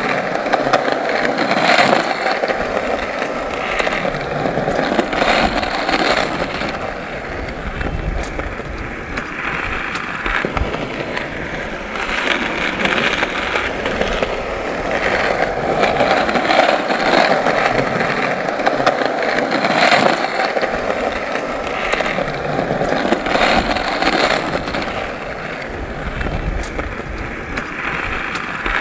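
Skateboard wheels rolling continuously over pavement, a steady rumbling hiss dotted with many small clicks and clacks, swelling and easing every few seconds.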